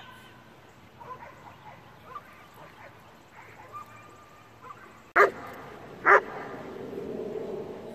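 Dog barking twice, two sharp loud barks about a second apart, after a few faint whines.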